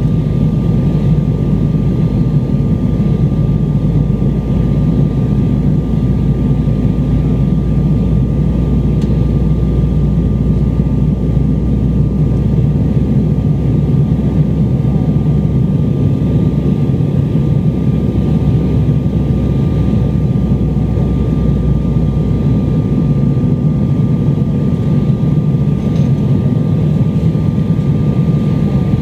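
Steady cabin noise of a jet airliner in flight, heard at a window seat: a deep, even drone of engines and airflow with a thin steady whine above it.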